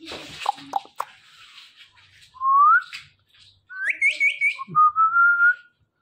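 Close kissing smacks, then clear whistling: a short rising whistle, a quick run of chirped notes, and a longer whistle that rises slowly near the end.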